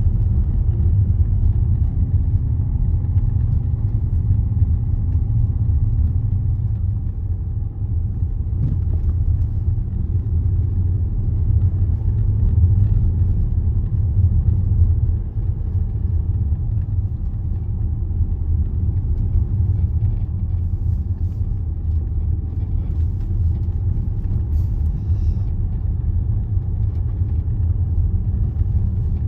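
Steady low rumble of a Range Rover driving along a narrow road, heard from inside the cabin.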